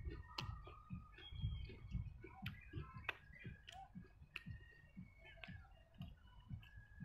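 Close-up chewing of a mouthful of steamed bun and fried onions: soft low thuds of the jaw about two or three times a second, with wet mouth clicks and lip smacks.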